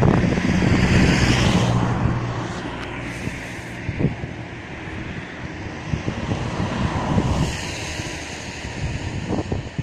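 Strong wind gusting across the microphone, a deep buffeting rumble that is loudest in the first couple of seconds and then eases, with smaller gusts after.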